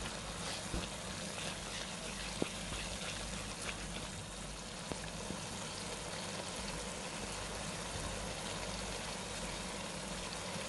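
Prawn masala simmering uncovered in a non-stick pan: a steady sizzling, bubbling hiss, with a few faint ticks of the wooden spatula against the pan in the first seconds.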